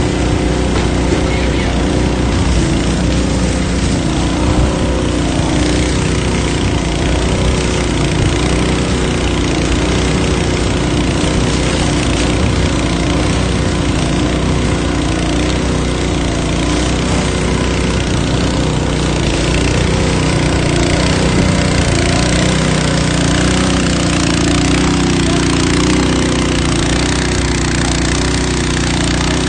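A firefighting pump's engine running steadily at constant speed, with a rushing hiss over it.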